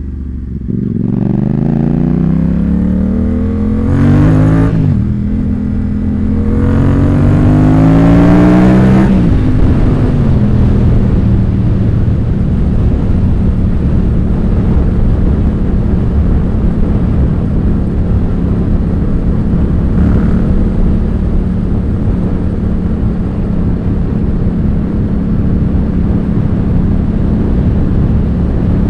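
Yamaha FZ-07 (MT-07) 689 cc parallel-twin engine through an Ixil L3XB aftermarket exhaust, accelerating with rising pitch. The pitch drops once about four seconds in, as at a gear change, then climbs again until about nine seconds in. After that it runs at a steady engine speed.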